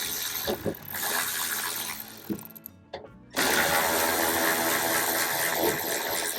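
Ratchet wrench with an 8 mm socket clicking on bolts, with background music. The sound drops out almost entirely near the middle, then the music comes back louder.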